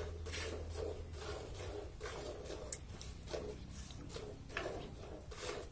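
Milk squirting from a cow's teats into a steel pail during hand milking, a rhythmic squirt about twice a second.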